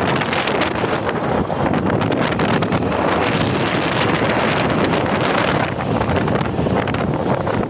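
Steady wind rush buffeting the microphone of a moving motorcycle, with the bike's running and road noise underneath.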